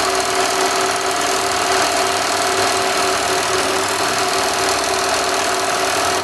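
AtlasUSA AT1341 cylinder-bed walking foot industrial sewing machine, driven by a servo motor, running steadily as it sews a tiny stitch, then stopping suddenly at the end.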